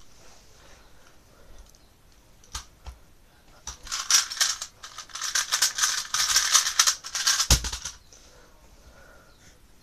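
A 3x3 Rubik's cube being turned very fast in a speed solve: about four seconds of rapid plastic clicking and clacking. Near the end comes a thump as the hands slap down on the speed timer to stop it.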